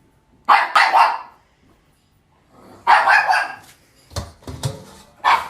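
A dog barking in separate loud barks: one about half a second in, one about three seconds in, and shorter ones near the end. It is the dog barking after being sent to "go tell" another member of the household that it is time to eat.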